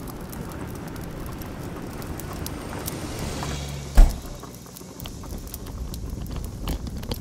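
Wood fire crackling in a fireplace: a steady hiss with scattered sharp pops, and one heavy low thump about four seconds in.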